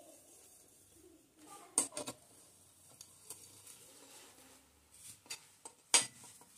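Sharp metallic clicks and taps of engine parts being set into a Hero Honda HF Deluxe motorcycle engine's aluminium crankcase during reassembly: two close together about two seconds in, and a few more near the end, the loudest about six seconds in.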